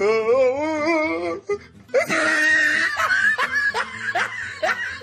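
A long, wavering vocal note, then a group of people laughing and shouting together from about two seconds in.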